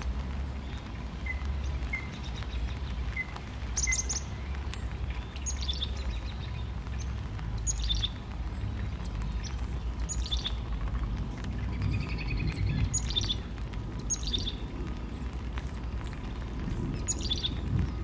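A small songbird giving short, sharp chip calls that slide downward, about seven of them one every two seconds or so, with a few fainter short notes in the first few seconds. A steady low rumble runs underneath.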